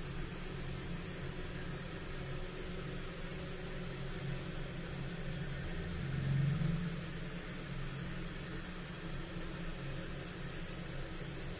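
A steady low mechanical hum with an even hiss over it, swelling briefly about six seconds in.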